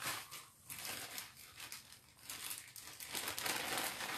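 Plastic bubble wrap and packing material crinkling and rustling as hands rummage through a cardboard box, in irregular crackly bursts.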